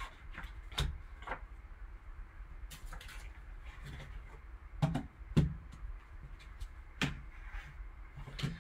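Gloved hands handling a trading-card box: scattered light clicks and knocks as a cardboard box, a plastic card holder and a foam insert are moved and set down. The loudest knocks come about five seconds in and again about seven seconds in.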